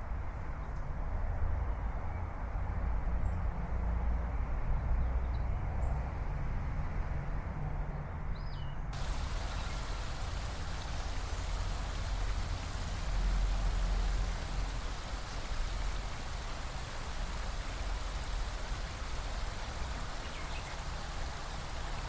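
Waterfall rushing steadily, a continuous wash of falling water with a deep low rumble; the sound turns brighter and hissier about nine seconds in.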